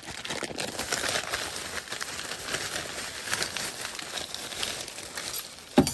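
Packaging crinkling as it is handled, with many small quick crackles, and a sharp click near the end.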